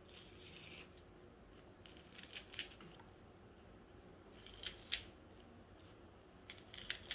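Faint cutting and scraping as an onion is hollowed out from the inside, in about four short spells with pauses between.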